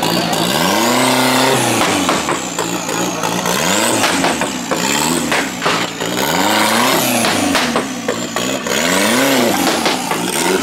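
Off-road buggy's engine revving hard and repeatedly while climbing a steep dirt slope, its pitch rising and falling about once a second as the throttle is worked on and off.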